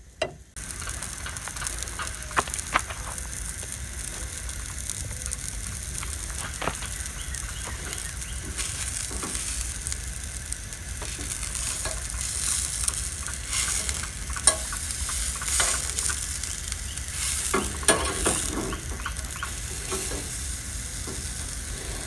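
Sausages sizzling in a steel skillet on a Coleman 413G camp stove, with scattered clicks and scrapes of a metal utensil against the pan as they are turned.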